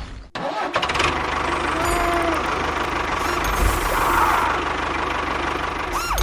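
A small engine starts up about half a second in after a brief gap, then runs steadily with a pulsing low rumble. A few short tones rise and fall over it.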